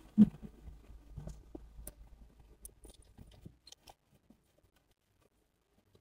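A dull knock just after the start, then light footsteps and scattered small clicks and taps as a front door's lock and handle are worked. The sounds die away about four seconds in.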